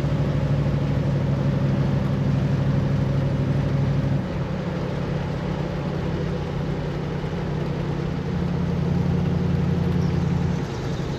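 Ford Econoline van driving along a country road, its engine running steadily under road and wind noise, heard from inside the cab. The engine note drops about four seconds in and again near the end, as if the throttle were eased off.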